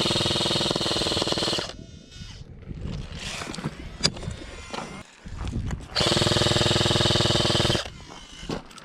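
Electric airsoft gun firing two long full-auto bursts, each lasting nearly two seconds, the gearbox buzzing at a fast, even rate of fire. A sharp click comes between the bursts.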